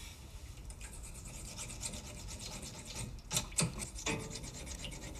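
Repeated rasping scrapes, then three sharp knocks about three seconds in.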